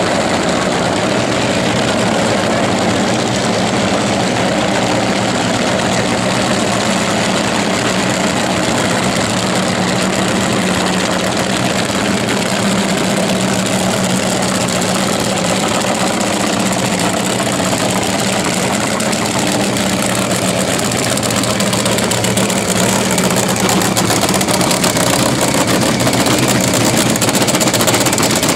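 Alcohol funny car's engine idling steadily while the car is backed up to the start line, getting a little louder near the end.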